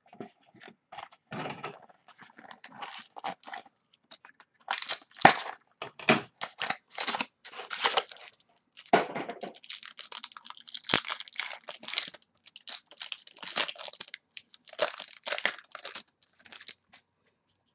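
Trading-card pack wrapper being torn open and crinkled by hand: an irregular run of crackles and rustles with short pauses.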